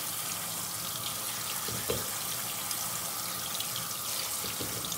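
Pull-down kitchen faucet spraying a steady stream of water over soaked sea moss in a colander and into a stainless steel sink, with a light knock about two seconds in.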